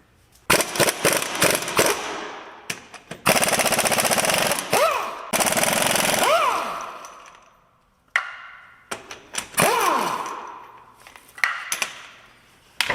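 Impact wrench hammering in several loud bursts, each winding down with a falling whine, as it loosens the lug nuts of a wheel with a flat tire.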